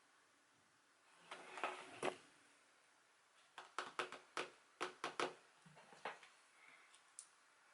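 Album packaging being handled by hand: a short rustle, then a quick run of sharp clicks and taps, with one more tap a second later.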